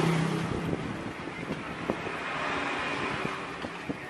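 A motor vehicle passing on the street: a rushing noise with a low hum that is loudest at the start and fades away. A few light clicks of a metal spoon against the pan come through it.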